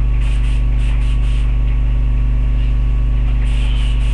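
Loud, steady low electrical mains hum on the recording, with faint rustles and light clicks over it.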